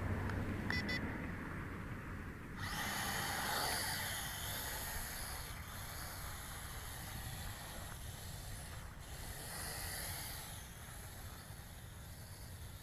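Small electric motors and propellers of a Lishi Toys L6052 toy quadcopter spinning up, starting about two and a half seconds in after a brief beep, then a steady high-pitched whirring hiss that slowly grows fainter as it flies.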